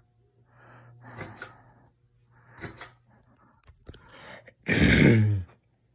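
A person takes a few short breaths, then sneezes loudly about five seconds in. Under the first two seconds is a faint steady hum from the ceiling fan running on low.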